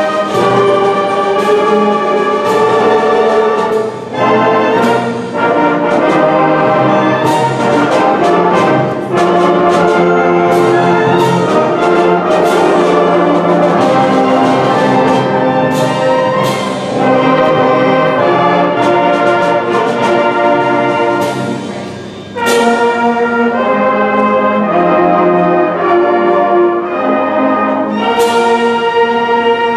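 Middle school concert band playing, with brass to the fore over sustained wind chords and percussion strikes. The music eases briefly about twenty-two seconds in, then the full band comes back in.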